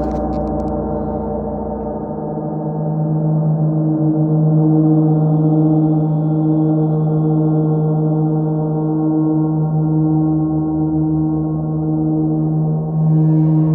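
Large 50-inch Oetken Sound Creation gong droning under a friction mallet: a steady hum of many overlapping tones. A strong low tone swells about two seconds in and then holds.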